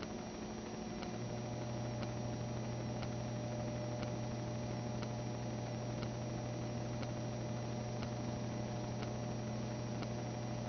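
Steady electrical hum with hiss, the low hum growing stronger about a second in, and faint ticks about once a second.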